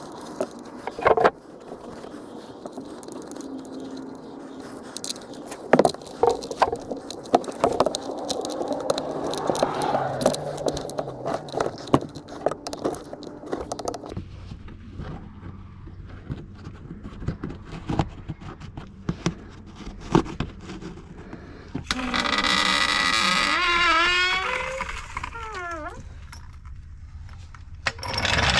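Small metallic clicks and scrapes as the oil drain plug, with its new washer, is threaded in by hand and tightened with a torque wrench. About 22 seconds in comes a few seconds of loud hissing with wavering squeals, as the Daytona hydraulic floor jack lets the car down.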